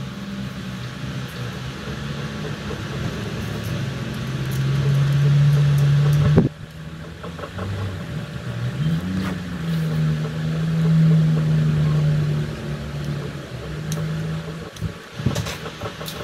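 Low, steady engine hum of a motor vehicle, rising briefly in pitch about nine seconds in, over a background hiss.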